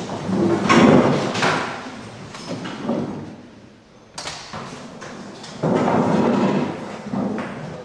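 A door opening and shutting, with a bang about four seconds in, among the noise of people walking into a room.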